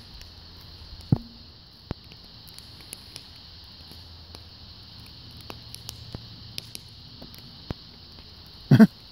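Dog chewing a wooden stick: scattered sharp clicks and snaps of teeth on wood over a steady high-pitched background drone. Louder voice-like sounds begin near the end.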